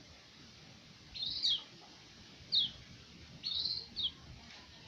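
White-eye (pleci) giving short high chirps, about three calls spaced roughly a second apart, some sliding up or down in pitch.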